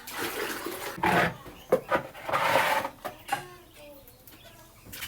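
Cleaning noises in a finch and quail aviary: two loud rustling, scraping bursts in the first three seconds, then soft, short bird calls.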